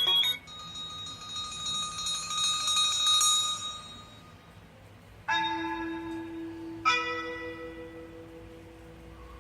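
Bell-like ringtones playing from an HTC Desire 601 smartphone's speaker. The first is a chime that rings out and fades over about four seconds. About five seconds in a new tone starts, with two bell strikes over a held low note.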